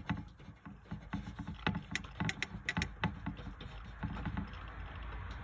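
Graphite pencil writing on paper: a quick, irregular run of scratches and taps as letters are formed, easing into softer, steadier stroking near the end.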